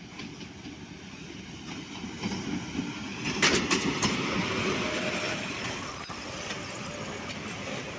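Hitachi-built diesel-electric locomotive and its passenger coaches passing close by, the engine rumbling and the wheels clacking over rail joints. The sound swells to its loudest with a burst of clicks about three and a half seconds in as the locomotive goes by, then carries on as the coaches roll past.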